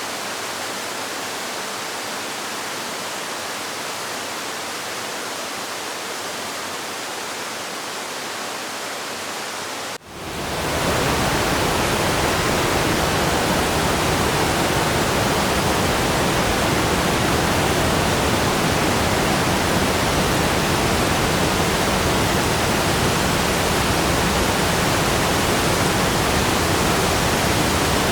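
Waterfall rushing steadily as an even hiss. About ten seconds in it cuts out for a moment and comes back as a louder, deeper rush.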